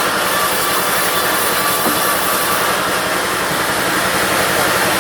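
A diesel-driven bandsaw running steadily: a constant engine drone with the saw's hiss over it.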